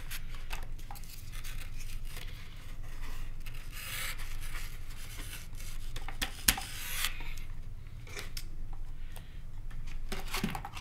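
A foam RC jet model being handled and shifted on a work mat: irregular rubbing and scraping of foam, with one sharp click about six and a half seconds in.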